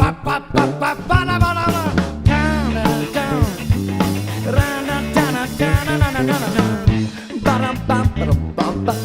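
Live blues-rock band playing an instrumental break: a lead line with bending, sliding notes over bass and drums.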